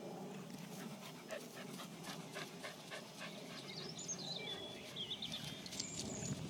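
A springer spaniel panting quickly, about three breaths a second.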